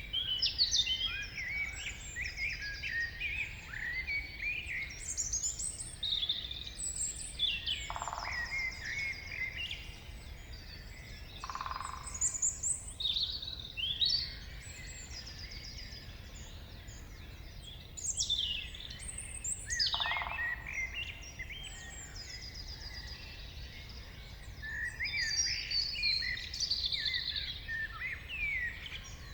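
Morning chorus of several forest songbirds: overlapping chirps, trills and short song phrases in busy spells, over a steady low background rumble.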